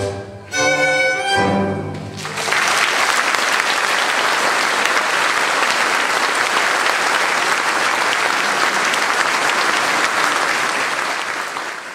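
A string orchestra ends a tango with a short chord, a brief break, then a final chord held for about a second and a half. From about two seconds in, audience applause takes over and continues steadily.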